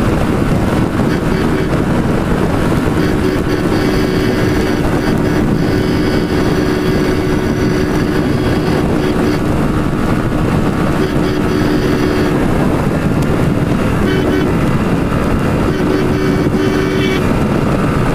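Small commuter motorcycle cruising at a steady highway speed, its engine drone mixed with wind rushing over the microphone.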